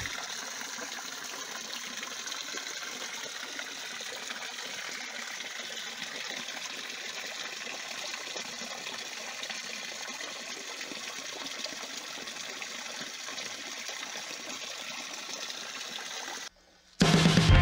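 Steady trickle of running water, an even hiss that cuts off suddenly near the end.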